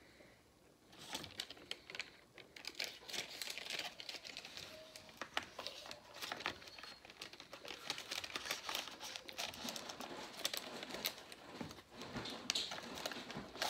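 Chocolate bar packaging handled: a wrapper crinkling as it is slid in and out of its cardboard box, with the box rustling and tapping, starting about a second in and going on without pause.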